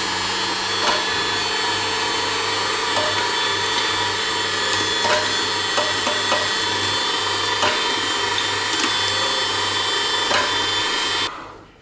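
Electric meat grinder running steadily, forcing chicken through its coarse plate, with a few faint clicks along the way. The motor cuts off shortly before the end.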